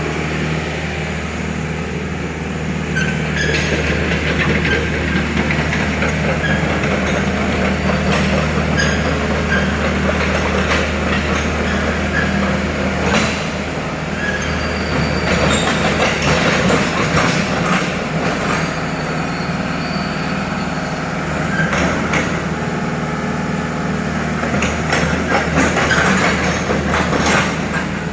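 Diesel engine of a heavy construction machine running steadily under irregular metal scraping, squealing and clanking, as of steel sliding and knocking on steel during unloading from a shipping container.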